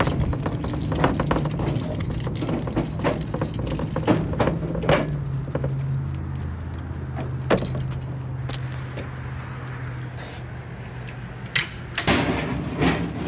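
Chevy Silverado pickup heard from inside the cab while driving: a steady low engine and road hum with scattered knocks and rattles. The hum drops in pitch about five seconds in and slowly eases off as the truck slows. A burst of clattering comes near the end.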